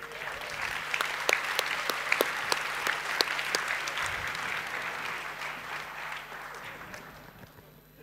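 Audience applauding, the clapping fading out near the end.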